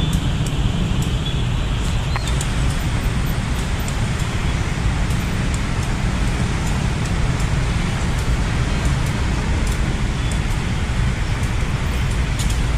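Steady traffic noise from a dense crowd of motorcycles and cars with their engines running.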